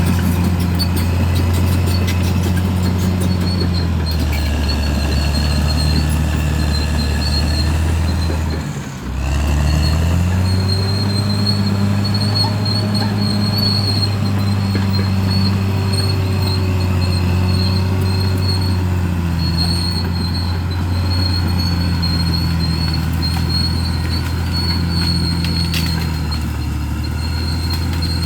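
Bulldozer's diesel engine running steadily, its revs rising and falling as it works. The sound dips briefly about nine seconds in. A thin high whine comes and goes throughout.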